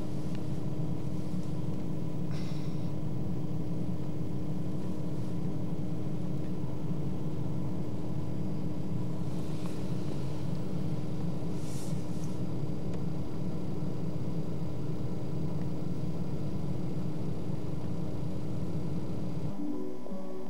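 A steady low rumble with a faint constant hum under it, broken by a few faint brief higher sounds. It stops abruptly about a second before the end.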